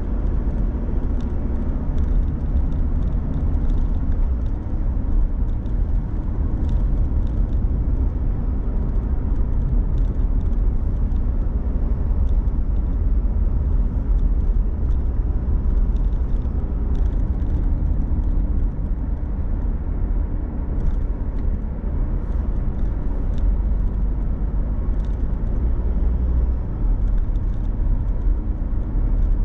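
Car driving along at steady speed: a continuous low rumble of engine and tyres on the road, with scattered faint light ticks.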